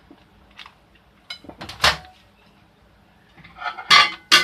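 A plate being put into a microwave oven and the door handled: scattered clinks and knocks, the sharpest about two seconds in, then a quick cluster of knocks near the end.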